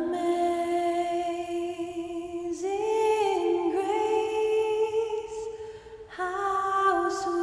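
Background music: a voice humming a slow melody in long held notes, changing pitch a few times.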